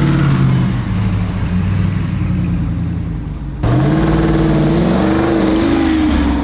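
Two Jeep Wranglers driving past one after the other, their engines rising in pitch as they accelerate away. The sound changes abruptly a little past halfway, when the second Jeep's engine comes in and climbs before holding steady.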